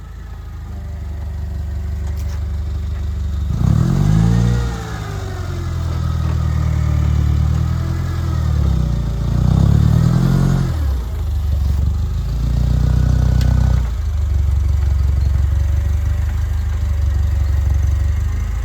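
Forklift engine running under load, revving up and back down twice as it lifts and carries a crate, with some clatter.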